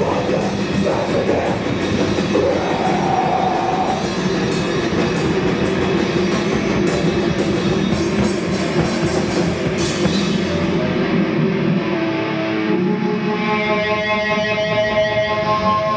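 Live rock band playing loud, with drums and crashing cymbals, bass and electric guitar. About ten seconds in the drums and cymbals stop, and sustained guitar notes are left ringing.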